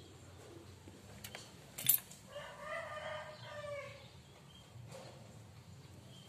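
A rooster crows once in the background, a single call about a second and a half long starting about two and a half seconds in. Just before it comes a sharp click.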